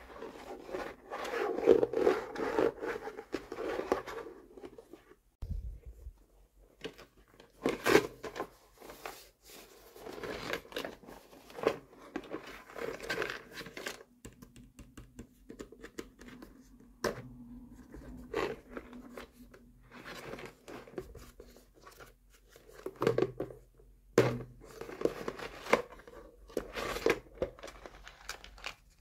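Hands handling a hard plastic shell-shaped mermaid playset case: fingers rubbing, scraping and tapping over its ridged surface, with sharp plastic clicks as the pink latch is worked and the case is pried open.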